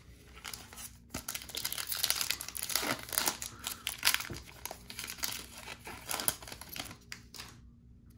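Crinkling and tearing of a 2020 Topps Baseball Holiday card pack's wrapper as it is picked up and torn open, loudest midway through.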